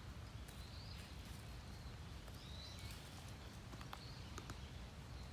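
Faint outdoor ambience under a steady low rumble: a few light clicks and rustles of sika deer hooves stepping in dry leaf litter, with a few high bird chirps.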